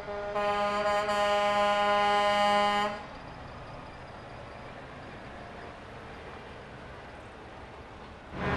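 Semi truck air horn, one long steady blast of about two and a half seconds, cut off abruptly. After it comes quieter, even street and engine noise as the Kenworth tractor rolls past.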